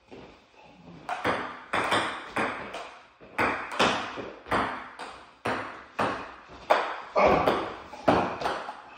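Table tennis rally: a ping pong ball hit back and forth, clicking off the paddles and table about twice a second, each hit trailing off in the room. The hits start about a second in.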